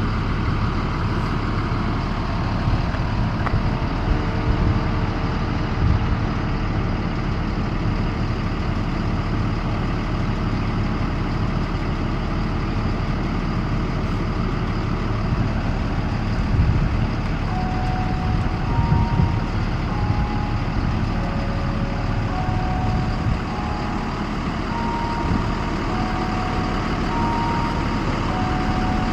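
School bus engine running steadily at idle, a low rumble with a few uneven surges. From about halfway through, short whistle-like tones at shifting pitches sound over it.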